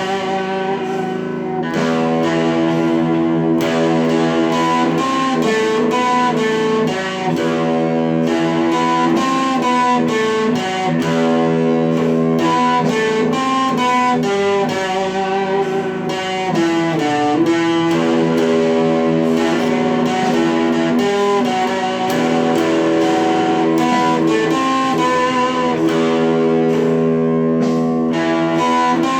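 Guitar playing an improvised melody of plucked notes, ringing over one another in a steady, continuous passage.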